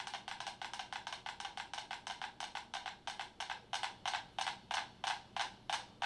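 Several mechanical metronomes ticking together on a plank resting on rolling cans, a rapid, uneven clatter of about nine ticks a second as their beats fall out of step with one another.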